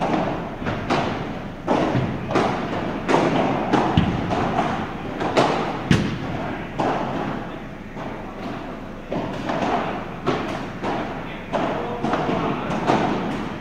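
Padel rally: a ball struck back and forth with solid padel rackets, a long irregular series of hard thuds and pops, about one or two a second, ringing in a large hall.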